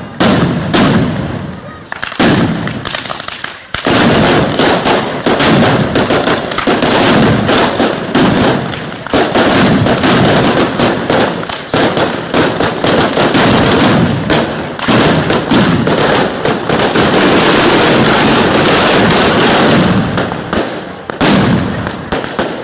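A ground barrage of fireworks: a long, dense run of rapid firecracker bangs and crackles, thinning to separate cracks near the end.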